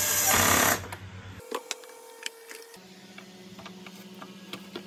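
Cordless drill-driver running as it drives a T20 Torx screw into the plastic vacuum housing, stopping abruptly under a second in. After that come light scattered clicks and taps of plastic parts being handled and fitted.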